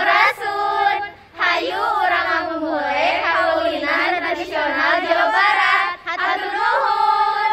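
Group of girls singing together in unison, their high voices holding and gliding through long phrases with a brief break about six seconds in.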